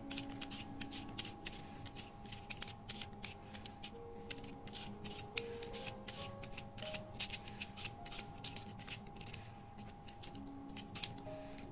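Handheld vegetable peeler scraping strips of skin off a makomotake (water bamboo) stem in quick, uneven strokes, several a second, over quiet background music.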